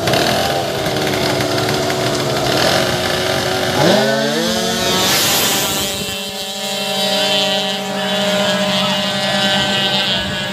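Two-stroke racing scooter engine revving hard: a steady buzz, then a sharp rising whine about four seconds in as it launches, held at a high steady pitch afterwards.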